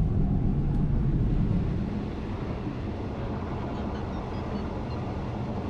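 Steady low rumble of a moving sleeper train heard from inside the carriage, a little quieter after about two seconds.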